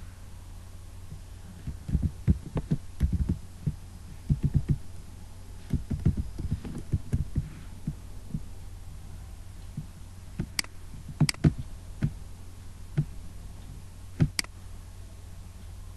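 Computer keyboard typing, a cluster of dull taps through the first half, then a few single sharp mouse clicks, over a steady low hum.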